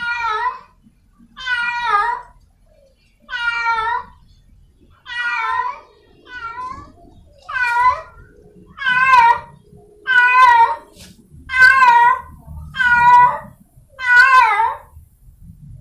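A feral domestic cat in heat yowling over and over, about eleven drawn-out wavering meows, the calling of a female looking for a mate. The calls come quicker and louder in the second half.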